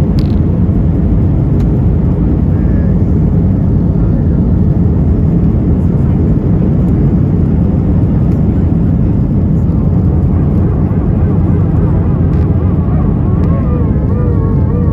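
Airbus A320 cabin noise in flight: a steady, loud rush of engines and airflow that does not change. A faint wavering voice comes through it near the end.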